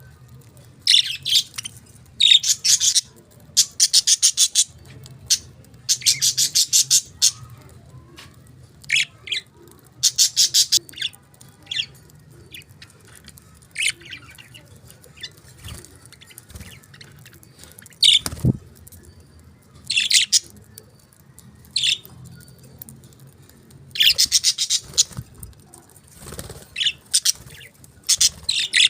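Budgerigars chirping and chattering in loud bursts of rapid, scratchy notes with short pauses between them.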